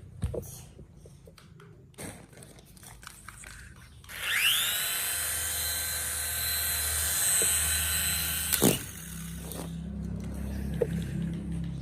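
A small electric motor spins up with a rising whine, runs at a steady high pitch for about four seconds, then cuts off suddenly with a click. Scattered light clicks and knocks come before and after it.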